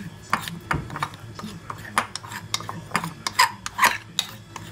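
Metal spoon stirring and scraping ice cream around a ceramic bowl, with irregular scrapes and light clinks against the bowl's sides. Two louder scrapes come about three and a half seconds in.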